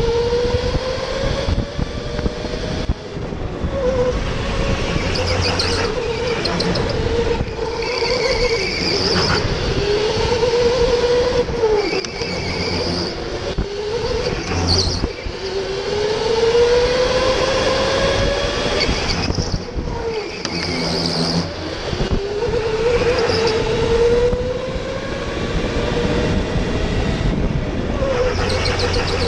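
Electric go-kart motor whining. The pitch rises as the kart accelerates, then drops off, about six times over.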